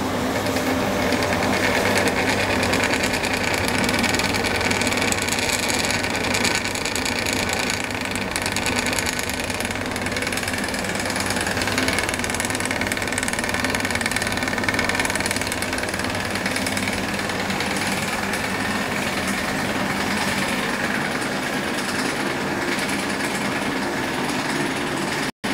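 Hotpoint tumble dryer running with its casing open: the electric motor hums steadily and turns the drum through its drive belt, with a continuous mechanical whir.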